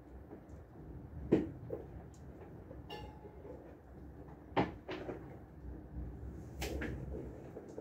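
Heavy rain as a steady low rush, broken by several sharp knocks, the loudest about a second and a half in and at four and a half seconds.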